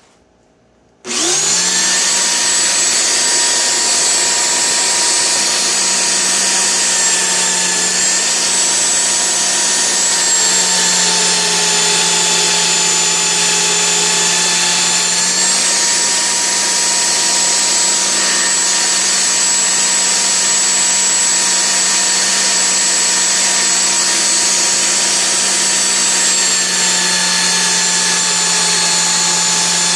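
A small belt sander switches on about a second in and runs steadily with a whine, its pitch dipping slightly now and then as the chainsaw bar is pressed onto the belt. It is grinding the bar's worn, uneven rails square, the cause of the saw binding in the cut.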